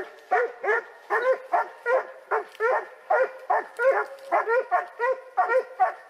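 Hunting dog barking over and over at about three barks a second, each bark a short rise and fall in pitch.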